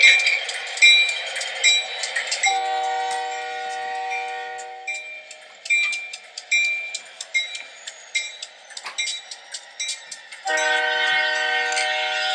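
Toy train sound effects: a bell ringing at an even pace, about once every 0.7 seconds. A multi-note horn blows twice over it, once for about two seconds starting a couple of seconds in, and again near the end. The sound is thin, with no bass, as from a small speaker.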